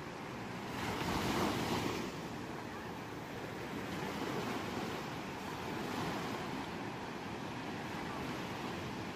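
Sea waves washing onto a shore. A bigger wave breaks about a second in, followed by gentler surges.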